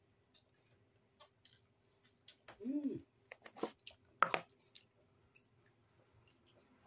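A person eating close to the microphone: scattered wet mouth clicks and lip smacks, thickest and loudest between about two and four and a half seconds in, with a short hummed "mm" near the middle.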